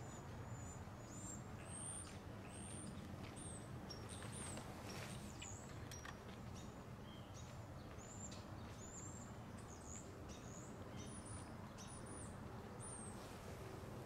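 Birds calling: a run of short, high, thin chirps, one or two a second, over a steady low background rumble.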